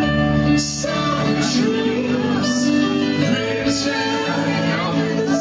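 Amplified live stage music with singers on handheld microphones, a steady beat marked about once a second.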